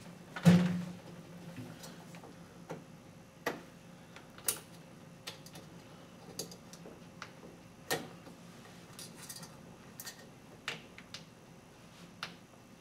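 Light, scattered clicks and taps as short screws are started by hand into a plastic bracket, with one louder knock about half a second in.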